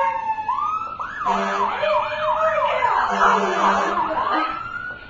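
Siren sound effect: a slow rising wail, then fast up-and-down yelps about three a second, then another slow rise near the end.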